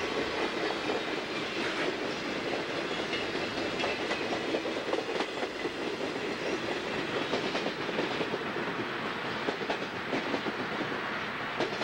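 Amtrak Superliner passenger cars rolling past at speed: a steady rush of steel wheels on rail, broken by many quick clicks and clacks from the wheels.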